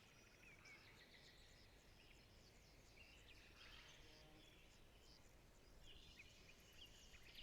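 Faint forest ambience of small birds chirping and calling, with scattered short chirps and trills throughout.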